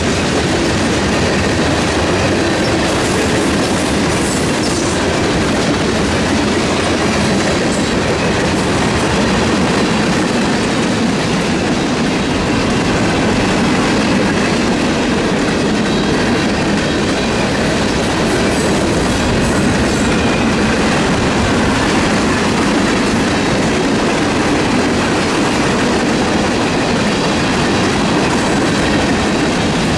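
Railroad cars rolling past, their wheels clattering over the rail joints in a loud, steady rumble.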